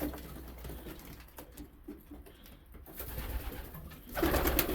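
Domestic pigeons cooing in a loft, fairly soft at first, with a louder stretch of cooing from about four seconds in.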